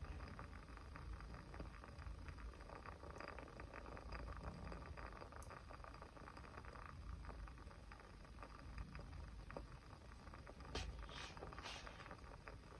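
Small wood fire crackling softly, with many fine crackles over a low rumble and a few sharper pops near the end.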